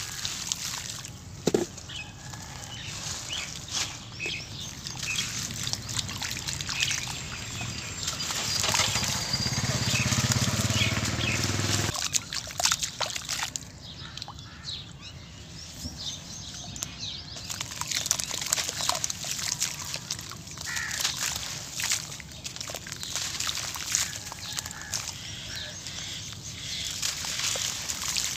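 Hands squeezing and crumbling wet sand-cement paste in a small pool of water, with sloshing and trickling and many gritty crackles. A low rumble swells in the middle and cuts off suddenly.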